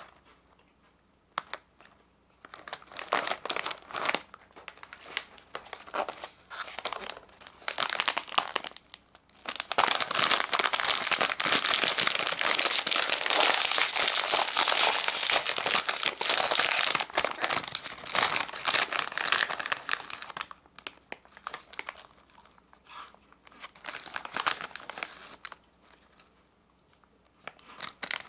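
Plastic snack wrappers crinkling as they are handled. Scattered crinkles at first, then a long stretch of dense, loud crinkling through the middle while a twist-wrapped candy is worked in both hands, then scattered crinkles again.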